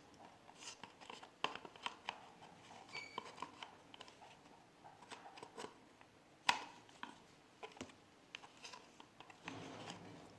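Light clicks and taps of hair dryer parts being handled as the motor is fitted back into its plastic housing, with one sharper click about six and a half seconds in.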